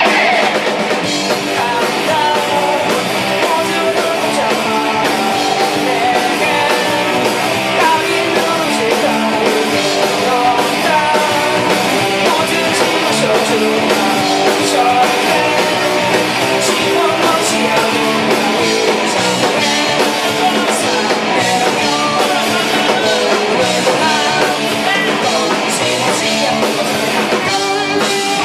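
Punk rock band playing live: electric guitar and drum kit, loud and continuous.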